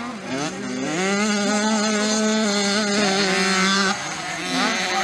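Small two-stroke mini motocross bike engine revving hard. It climbs in pitch in the first second and holds at high revs for about three seconds, then drops off about four seconds in and begins climbing again near the end.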